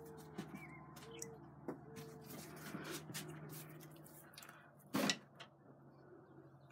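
Handling noise from a phone being moved around: scattered clicks and rustles over a steady low hum, with one loud brief rustle or knock about five seconds in.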